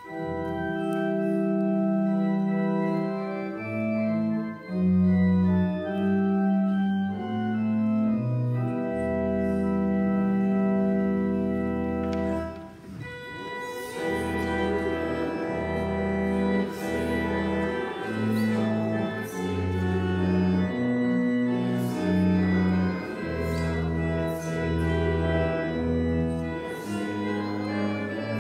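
Church organ playing a slow hymn tune in held chords, pausing briefly about halfway through before playing on.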